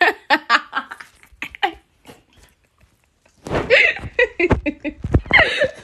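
A girl's voice close to the microphone, talking and laughing in short bursts. A quieter gap of about a second and a half in the middle is followed by louder laughing talk.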